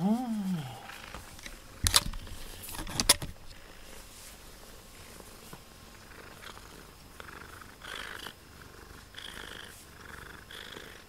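Black domestic cat purring steadily, close to the microphone, while being stroked. A short rising-and-falling call comes right at the start, and two sharp knocks come about two and three seconds in.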